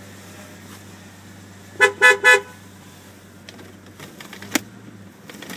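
Jeep Grand Cherokee's horn beeping three times in quick succession about two seconds in, over the low steady hum of the idling engine. A single sharp click follows about four and a half seconds in.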